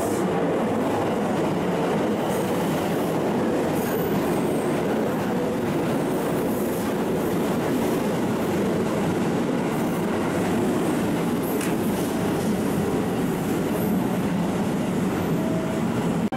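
JR West 225-5000 and 223-2500 series electric train pulling out of the platform, its cars rolling past with steady wheel-on-rail noise.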